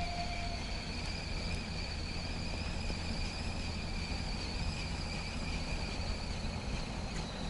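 Insects singing a continuous, even high buzz at two steady pitches, over a low steady rumble.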